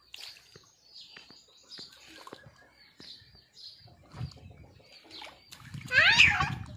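Birds chirping in short, repeated high calls in the background. Near the end a child's voice gives a loud, high, rising cry over a low rumbling noise.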